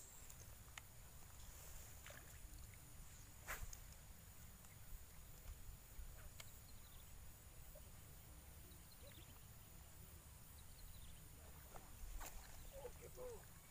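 Near silence: faint outdoor ambience with a low rumble and a few soft clicks, one about three and a half seconds in and one near the end.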